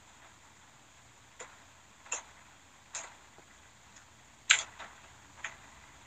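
Several faint, irregularly spaced clicks over a low hiss, the loudest about four and a half seconds in.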